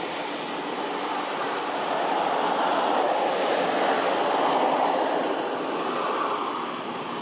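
Steady rushing noise that swells in the middle and eases off near the end.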